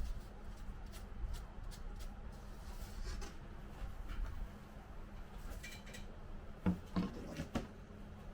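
Light clicks and taps of small parts being handled, with a few louder knocks about seven seconds in, over a steady low hum.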